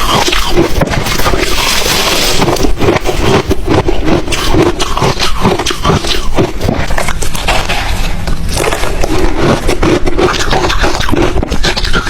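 Ice being chewed close to the microphone: loud, dense, continuous crunching and cracking.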